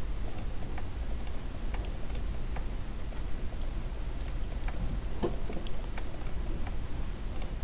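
Scattered computer mouse clicks at irregular intervals over a steady low hum, with a faint, even high ticking a few times a second.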